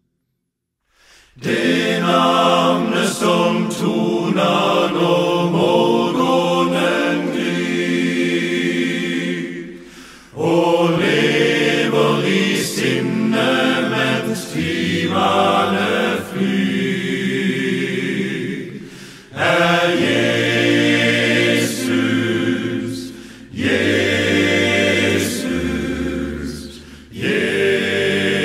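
Men's choir singing a cappella in several parts, with a low bass line under the upper voices. It starts about a second in after a moment of silence and goes in long phrases with short breaks for breath between them.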